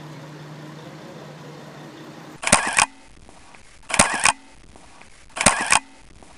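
A steady low hum, then three camera-shutter clicks about a second and a half apart, each a short sharp click-and-snap, used as the transition sound between still photos.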